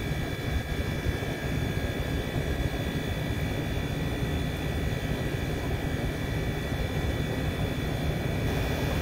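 Mobile crane's engine running steadily during a lift, a low continuous rumble with a faint steady high whine over it.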